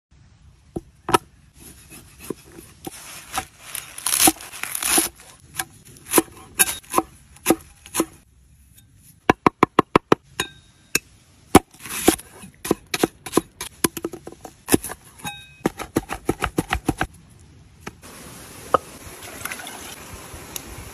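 Cleaver chopping on a wooden tree-stump block: single knocks at first, then fast runs of chops as herbs are minced. Near the end the chopping stops and the steady rush of a small waterfall takes over.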